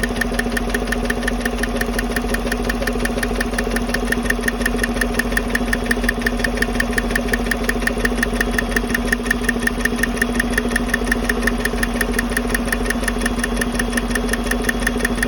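2015 Chevy Silverado 5.3 V8 idling with a fast, even ticking from the passenger-side valvetrain, traced to one rocker on a cylinder-deactivation (DOD) cylinder; the mechanic suspects bad needle bearings in that roller rocker arm.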